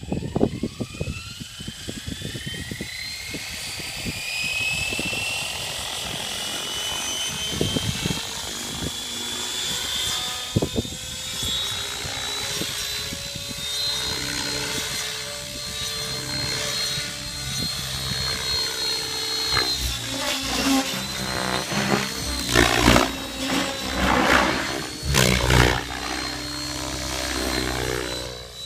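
Rave Ballistic 700 radio-controlled helicopter spooling up, a whine rising steadily in pitch as the rotor comes up to speed, then a steady high whine as it hovers. In the last several seconds it flies 3D aerobatics and the rotor noise swells and fades in loud surges.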